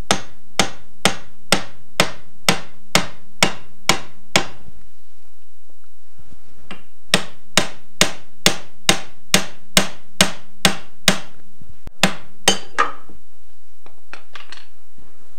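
Hammer striking a steel pickle fork (ball joint separator) wedged between a Willys MB tie rod end and its steering arm, to pop the tapered tie rod end stud out of the arm. Sharp metal-on-metal blows at about two a second, a pause of a couple of seconds after the first run, then another run and a few last blows before the tie rod end comes free.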